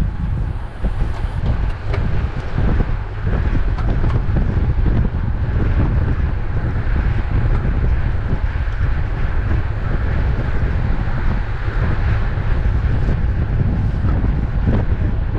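Wind rushing and buffeting over the microphone of a camera on a racing bicycle at speed, with a steady higher hiss over it and no engine note.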